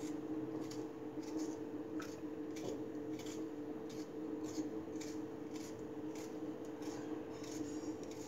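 Small kitchen knife cutting a tomato held in the hand into small pieces: a series of short, soft slicing clicks about once or twice a second, over a steady low hum.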